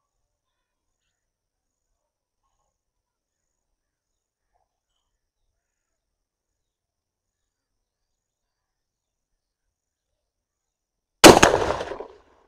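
Near silence, then a single 12-bore shotgun shot about eleven seconds in, fired from the lower, modified-choke barrel of a Tula TOZ-200 over-under with an SG buckshot cartridge; the blast dies away over about a second.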